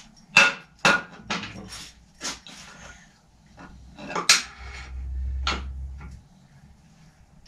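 Several sharp clinks and knocks of small hard objects being handled, irregularly spaced, with a low hum for a second or two past the middle.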